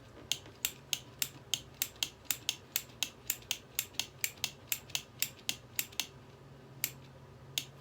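Rapid, evenly spaced sharp clicking from a hairdryer that will not start, about three clicks a second for some six seconds, then two slower clicks, over a faint steady low hum.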